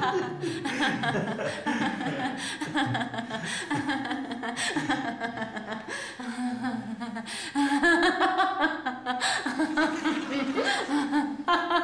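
A woman laughing helplessly in a long, unbroken fit of giggles and chuckles.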